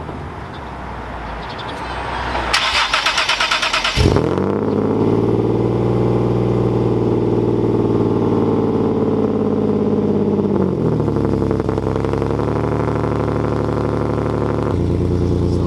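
Single-turbo 2012 Nissan 370Z Nismo's 3.7-litre V6 cold start. The starter cranks for about a second and a half, then the engine catches with a quick rise about four seconds in and settles into a steady fast cold idle, which drops a little around eleven seconds.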